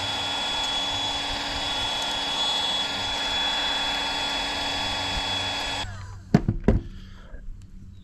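Milwaukee M18 cordless heat gun running steadily, its fan giving a steady rush with a thin high whine, as it shrinks heat shrink over a crimped battery-cable lug. It cuts off about six seconds in, followed by a few knocks.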